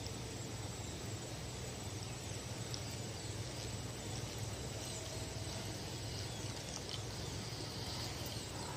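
Steady outdoor background noise with no distinct events: a constant, even hiss with a faint high tone and a low rumble underneath.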